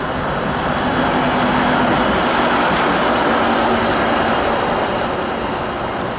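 A TTC CLRV streetcar passing close by on street track: a steady rumble of wheels on the rails with a low motor hum, loudest in the middle and easing off near the end.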